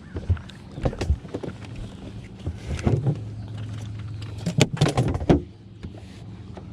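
Short sharp knocks and clatter over a steady low hum, the loudest knocks coming in a quick cluster about four and a half to five and a half seconds in.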